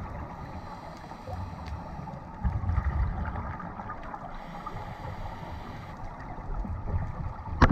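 Scuba divers' exhaled regulator bubbles gurgling, heard underwater through a camera housing as a muffled rumble that swells about two and a half seconds in. A sharp knock just before the end.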